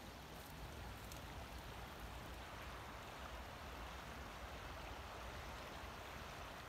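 Faint, steady rush of flowing floodwater from a swollen river and the channels running off its bank, with a low rumble underneath.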